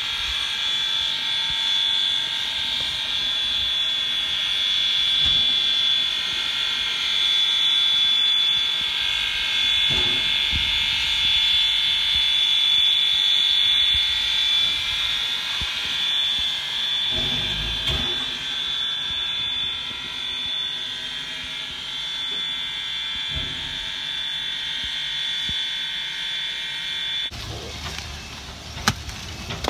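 Steady high-pitched whine over hiss from a coal-fired Denver & Rio Grande Western K-36 steam locomotive standing with steam up. About three seconds before the end it cuts off suddenly, giving way to a low hum and a few sharp clicks.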